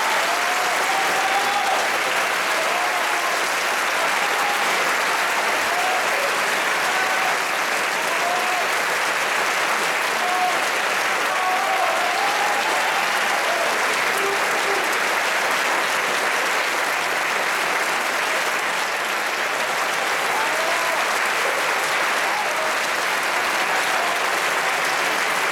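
Opera house audience applauding steadily, with scattered shouts from the crowd over the clapping.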